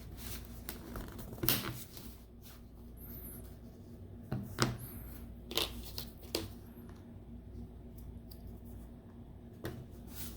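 Plastic clip tabs of a Samsung SM-T290 tablet's back cover snapping loose as a pry tool is worked along the seam: several sharp, irregularly spaced clicks with light scraping and handling between.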